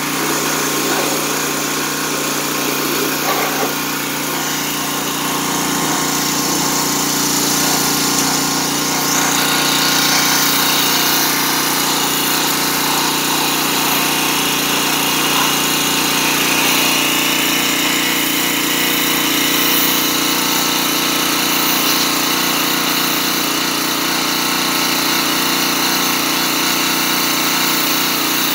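Small gas engine of a Craftsman pressure washer running steadily, with the hiss of the high-pressure water jet spraying against a snowplow blade.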